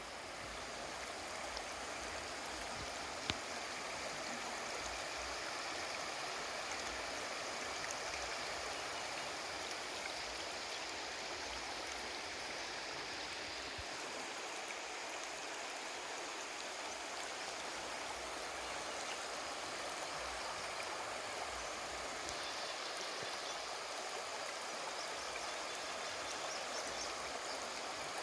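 River water flowing over rocks, a steady rushing babble, with a single sharp click about three seconds in.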